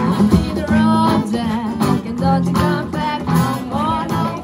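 Small live band playing: a woman singing over strummed acoustic guitar and electric guitar, with a cajon keeping the beat.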